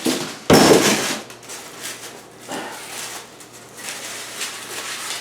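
Handling noise from unpacked flat-pack furniture parts and packaging: a loud rustling clatter about half a second in, then quieter scrapes and knocks.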